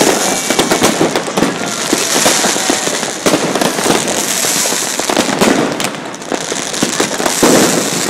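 Many fireworks and firecrackers going off at once: a dense, unbroken crackle of bangs and pops with no pause.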